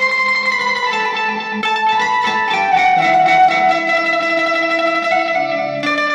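Electric bulbul tarang (Indian keyed banjo) playing a melody. The keys stop the strings while they are strummed, giving a run of held, ringing notes that change pitch every second or so.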